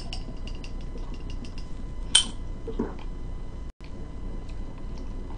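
Drinking from a Ramune soda bottle: scattered faint clicks, one sharp clink about two seconds in, then a brief low throaty sound.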